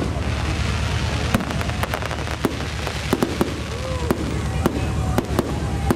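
Fireworks display: aerial shells bursting in a rapid, irregular run of sharp bangs and crackles, over a steady low rumble.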